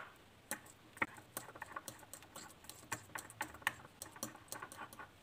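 Metal fork mashing avocado in a small ceramic bowl: irregular light clicks and taps of the tines against the bowl, several a second, with one sharper knock right at the start.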